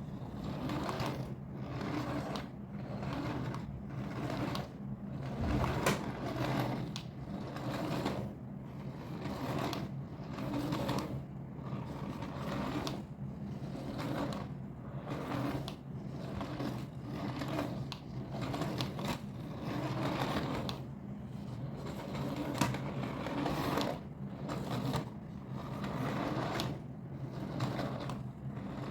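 A small electric motor in a battery-powered toy runs steadily, with a low hum and a rhythmic mechanical clatter repeating about once or twice a second.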